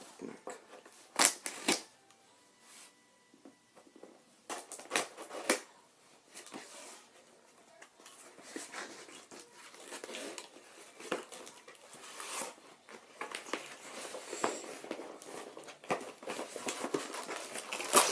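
A package being opened and its packaging handled: a few sharp snaps and clicks in the first several seconds, then steady crinkling and rustling of wrapping.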